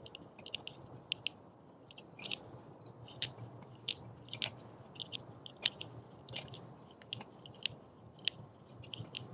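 Charcoal briquettes clicking and clacking as they are set down by hand and leaned against each other on the charcoal grate of a Weber kettle grill. The light, sharp knocks come irregularly, about once or twice a second.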